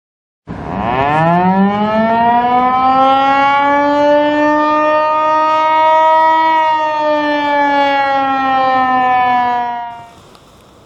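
Outdoor warning siren winding up: a loud tone that rises in pitch over about two seconds, holds steady, sags slightly and cuts off near the end.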